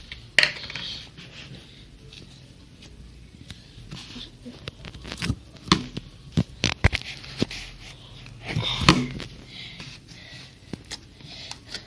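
Slime being squeezed and kneaded by hand: scattered wet squelches, sticky crackles and small pops, with a cluster of sharper pops a little past the middle.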